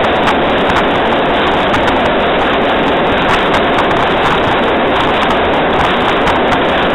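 Steady loud rushing noise on the pilot of steam locomotive No. 192 as it runs along the track: wind across the microphone mixed with the rolling of the train.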